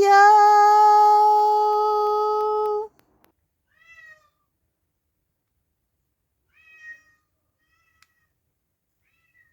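A long drawn-out meow held at a steady pitch for about three seconds, then two brief, faint, high mews about four and seven seconds in.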